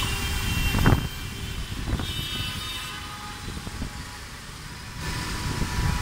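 Road traffic moving slowly through floodwater: a steady rumble of engines and tyres in standing water. A sharp thump comes about a second in, and the traffic noise dips in the middle and swells again near the end.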